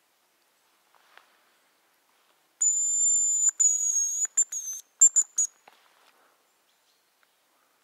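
Hazel grouse decoy whistle blown close by: a thin, very high whistle held for about two seconds with a few breaks, then three short high notes. Faint clicks and rustles of handling come with it.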